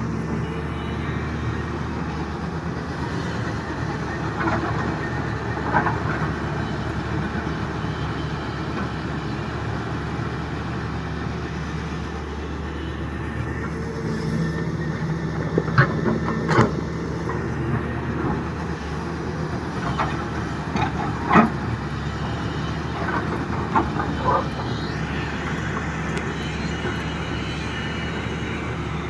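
Excavator's diesel engine running steadily while it works rock, with several sharp knocks of rock and steel in the second half.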